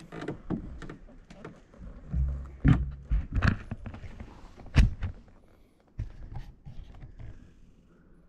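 Irregular knocks and thuds of a fat bike and footsteps on wooden boardwalk planks, with one loud thud about five seconds in.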